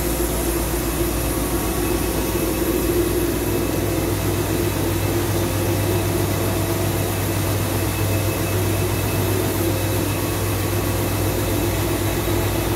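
CNC lathe and its workshop machinery running with a steady, even hum over a hiss, holding several constant tones with no knocks or changes in pitch.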